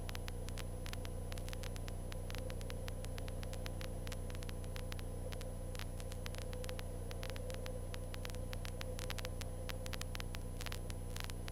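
Steady low hum with irregular crackles of static, as heard on a Cessna 152's headset intercom and radio audio line, with the engine's drone faint behind it.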